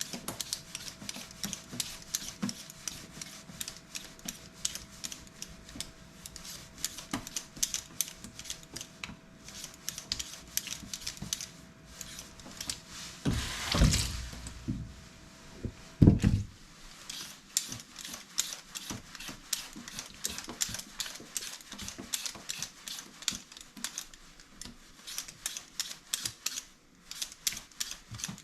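Knife chopping on a cutting board in rapid, irregular strokes, with a louder rustling swell about halfway through and a single heavy thump just after.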